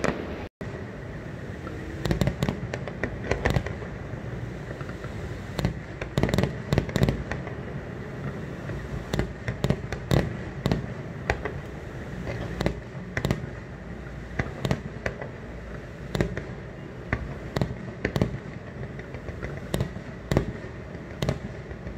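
Irregular sharp cracks and bangs, sometimes several in quick succession, over a steady background noise.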